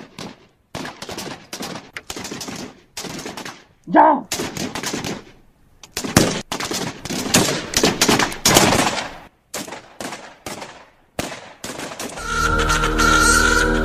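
Dubbed gunfire sound effects: volleys of rapid shots, like automatic weapons firing, going on in uneven clusters. A shout comes about four seconds in. Near the end, music with a held droning chord comes in.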